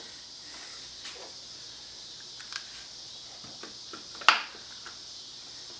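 A board and clamp being handled and tightened at a miter saw: a few light clicks, then one sharp wooden knock about four seconds in, over a steady background hiss.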